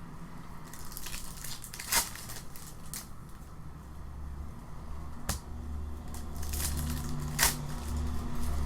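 Trading-card packs and cards being handled: wrappers crinkling and tearing, with sharp crackles about two, five and seven and a half seconds in. A low hum comes in around halfway through.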